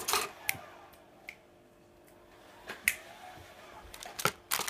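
Plastic model-kit runners clicking and clacking against each other and the box as they are handled, a few scattered clicks, then a quick cluster near the end.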